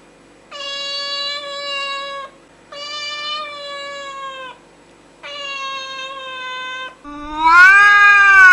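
Cat meowing: three long, drawn-out meows on a steady pitch with short pauses between, then a louder meow about seven seconds in that rises and then falls in pitch.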